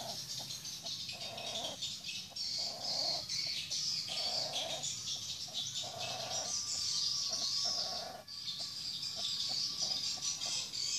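Birds chirping and twittering throughout, with a lower short call repeating at an even pace about every second and a half.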